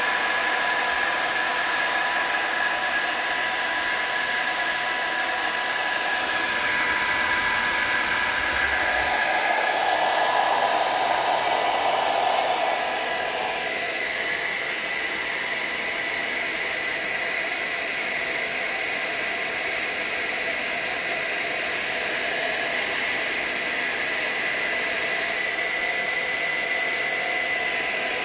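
Steady whooshing hum of an electric blower appliance, with a thin, steady motor whine on top. It grows a little louder and changes tone for several seconds around the middle, then settles back to an even whir.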